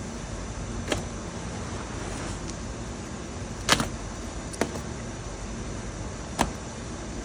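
Cardboard boxes being handled and shifted in a pickup bed: four short knocks and thuds, the loudest about three and a half seconds in, over a steady low background hum.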